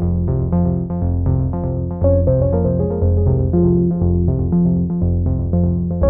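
Instrumental background music: synthesizer and keyboard playing a quick run of short notes over a repeating bass line with a steady beat.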